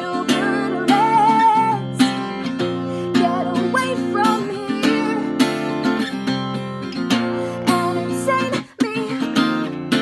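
Acoustic guitar strummed in a steady rhythm of chords, with a voice singing along at times. The strumming breaks off for a moment near the end, then picks up again.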